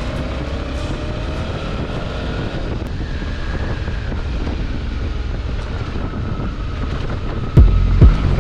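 Suzuki V-Strom 650XT's V-twin engine running while the motorcycle is ridden, with wind noise on the microphone. Near the end, loud, evenly spaced bass beats of music come in.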